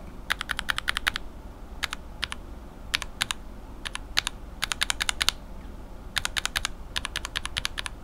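Lubed linear mechanical keyboard switches (Cherry retooled bottom housings, Revo White stems and springs, Tribosys 3204 lube) pressed in quick runs of several keystrokes, with short pauses between the runs.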